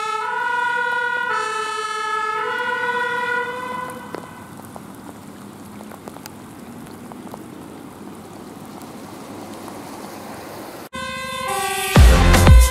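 Fire service van's two-tone siren alternating between two pitches about once a second, dying away after about four seconds and leaving a steady background of road noise. Near the end, a cut to loud electronic music with heavy beats.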